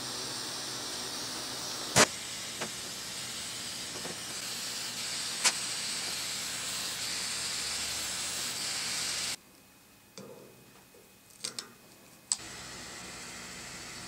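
Small handheld gas torch flame burning with a steady hiss while it heats a soldered cable lug and heat-shrink tubing, broken by two sharp clicks. The hiss cuts out about nine seconds in and comes back, quieter, some three seconds later.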